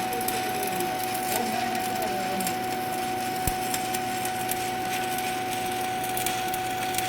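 Stick (arc) welding on a pipe joint: the arc crackles and sizzles steadily, with a thin steady whine underneath.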